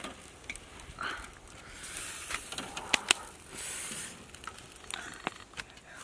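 Scattered light clicks and soft rustling with two brief hissy bursts, as grilled whole fish are handled in a wicker basket.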